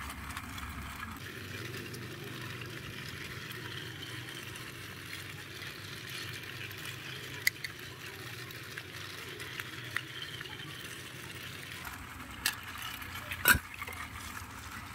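Faint handling sounds of a screwdriver working the battery-cover screw on the underside of a plastic toy train engine, over a steady low hiss, with a few sharp plastic clicks in the second half.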